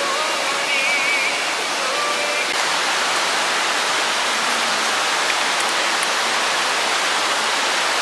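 Valley stream rushing steadily.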